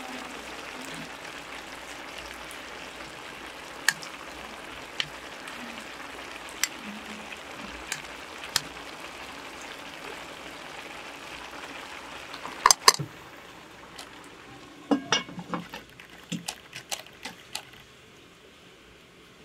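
A big pot of rice pilaf with raisins and carrots sizzling and steaming as a metal skimmer stirs it, with occasional light clinks of metal on the pot. About 13 seconds in come two sharp metal clanks, the sizzle then drops away, and a run of light knocks and clatters follows.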